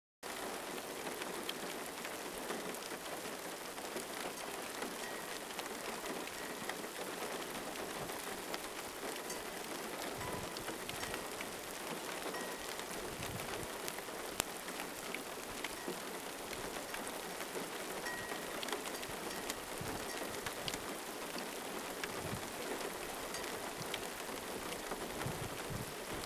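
Steady rain falling, with many small drops ticking through an even hiss.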